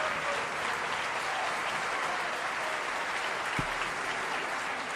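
Concert audience applauding steadily, with a single low thump about three and a half seconds in.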